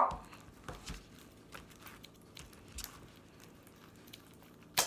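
Sticky homemade slime being kneaded by hand: faint crackles and small sticky clicks, with one sharp click near the end.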